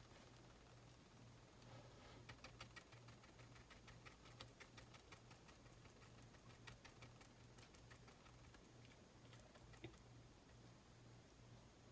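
Faint, rapid tapping of a deer foot stippler brush dabbing acrylic paint onto a canvas panel, several taps a second. The tapping starts about two seconds in and thins out near ten seconds, over a low steady hum.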